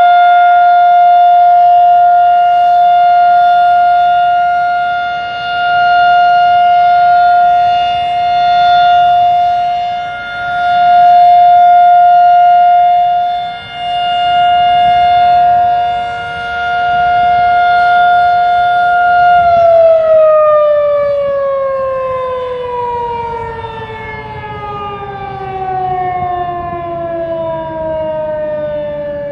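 Outdoor tornado warning siren sounding its weekly test: a steady, loud wail that swells and fades every few seconds. About two-thirds of the way through, its pitch starts falling steadily as the siren winds down.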